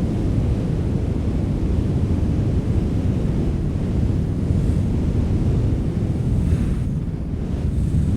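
Steady wind, a deep rumble with a faint hiss above it and no clear breaks.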